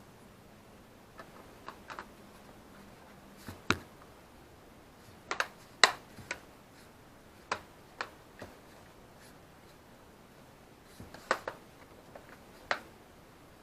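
Irregular sharp clicks and taps, about twenty in small clusters, from Chromebook parts and tools being handled during a repair; the loudest comes about six seconds in.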